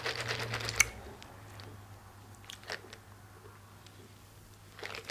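Close-miked eating: biting and chewing with wet mouth clicks, busiest in the first second with one sharp click, then a few scattered clicks as the chewing quiets down.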